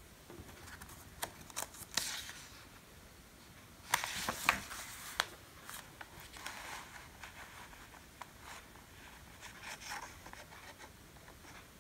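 Pages of a picture book being turned and smoothed flat by hand: short paper rustles and soft clicks, loudest about two seconds in and again around four to five seconds in, with fainter rubbing after.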